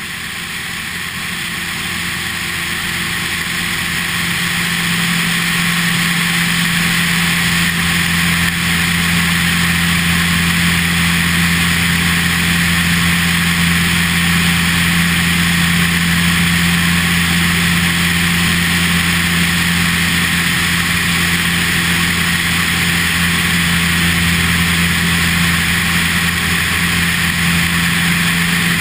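Cessna 172RG Cutlass's four-cylinder Lycoming engine and propeller droning steadily in flight, with heavy wind rush over the tail-mounted camera's microphone. The sound swells over the first few seconds, then holds steady.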